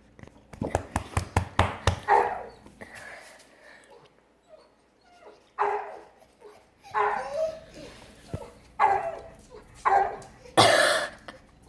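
A male dog barking loudly in single barks, excited by a female dog in heat; he is deaf, which the owner gives as why he barks so loud and can't control it. A quick run of sharp knocks comes in the first two seconds.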